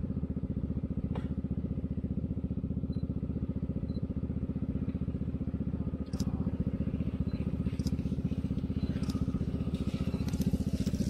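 Motor scooter engine running steadily at a low, even pace, with a sharp click about a second in and scattered light clicks and knocks from about six seconds on.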